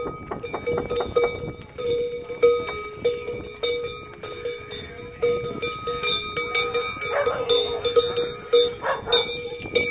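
Large bells worn on a čert (devil) costume clanging in quick, uneven strokes as the wearer moves, each stroke ringing on.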